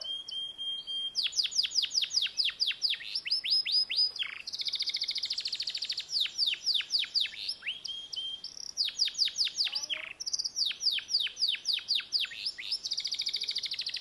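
Yellow domestic canary singing a long, unbroken song: runs of rapid falling whistles, about five a second, alternating with buzzy trills and a held note at the start.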